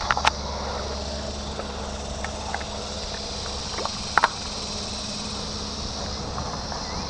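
Insects buzzing steadily and high-pitched in the creekside vegetation, over a low steady hum, with a few sharp clicks near the start and about four seconds in.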